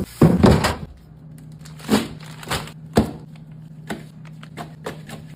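Containers and food items being set down and shifted inside a refrigerator: a quick run of knocks and clatters in the first second, then separate light clicks and taps, over a low steady hum.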